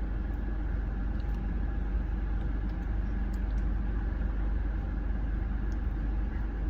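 Steady low rumble of an idling vehicle engine, with a few faint light clicks.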